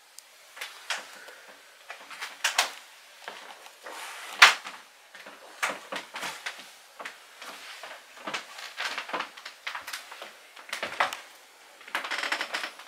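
Soft, irregular clicks and knocks of slow movement in a quiet small room, with one sharper knock about four and a half seconds in and a short hiss near the end.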